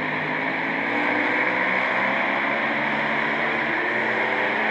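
Road-racing motorcycle engines running at high revs around the circuit, a loud, steady sound whose pitch slowly shifts as the bikes go by.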